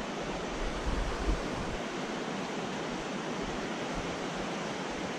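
Steady rush of a mountain creek flowing over shallow riffles, with low bumps of wind or handling on the microphone about a second in.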